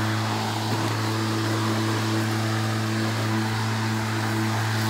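EGO Power+ battery lawn mower running as it mows grass: a steady low hum from the electric motor and spinning blade over an even rushing noise.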